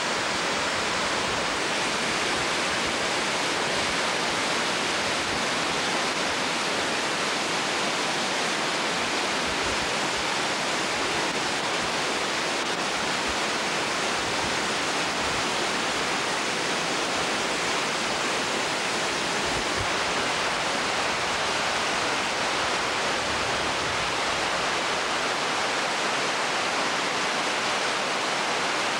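River water rushing over rock falls and a weir: a steady, unbroken rush of white water.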